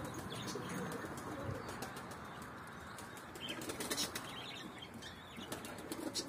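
Pigeons' wings flapping, faint against a steady hiss, with scattered faint clicks.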